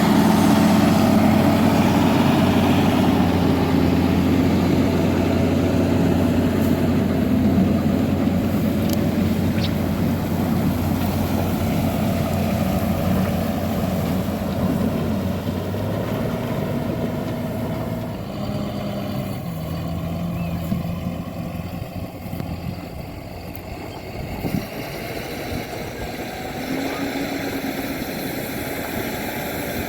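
John Deere 7430 Premium tractor's six-cylinder diesel engine working under load. The note is steady at first, steps down in pitch a little past halfway, and the sound gradually grows quieter.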